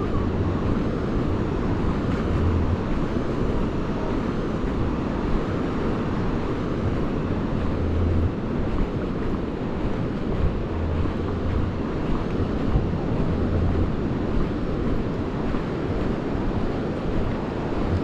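Wind buffeting the microphone, with low rumbles coming and going, over the steady wash of sea waves on the shore.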